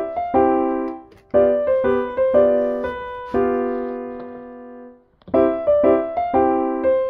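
Background piano music: short phrases of chords and notes, each struck and fading, with brief pauses about a second in and about five seconds in.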